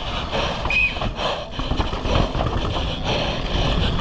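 Downhill mountain bike ridden at race speed over dry dirt and roots: wind rushing over the microphone, tyres scrabbling on the dirt, and the bike rattling and knocking over the bumps, with a brief high squeak about a second in.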